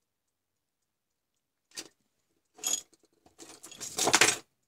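Handling noise at a workbench as multimeter probe leads and a small component are fiddled with and set down. A short click comes about two seconds in, then a brief clatter, then a louder rattling and rustling near the end.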